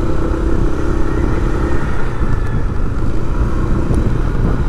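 Steady road traffic: motor vehicles running past in a continuous rumble.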